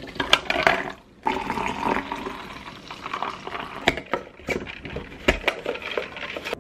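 Coffee poured over ice cubes into a plastic tumbler, the liquid rushing and the ice clicking and crackling, with a short pause about a second in. A few sharp knocks follow later as the lid and straw are fitted.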